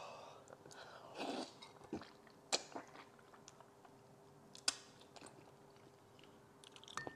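Quiet eating sounds of a person slurping soft, gelatinous stewed pork trotter off chopsticks and chewing: a short sucking slurp about a second in, then two sharp wet mouth clicks and faint chewing.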